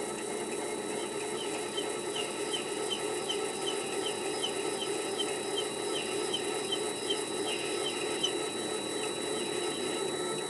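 Chinese mini lathe with a motor-to-layshaft toothed-belt drive running with a steady whir and a thin high whine. Over it, a regular high chirp repeats about three times a second for several seconds, then stops near the end.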